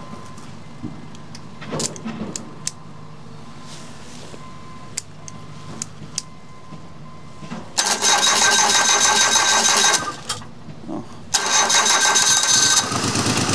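A few sharp clicks over a low hum, then the starter cranks a three-cylinder engine for about two seconds, stops, cranks again and the engine catches near the end and keeps running. It is a hard start, because the fuel had been run down to empty.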